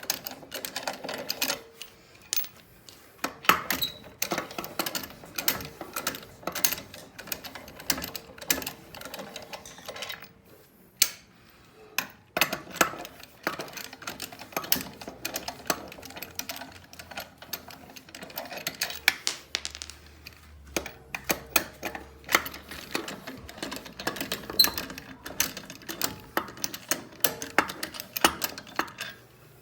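Hand ratchet wrench clicking in quick runs while undoing fasteners, with short pauses and small metallic clinks in between.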